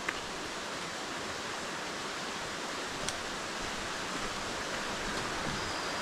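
Steady rush of a rocky forest stream and its cascades, growing slightly louder toward the end.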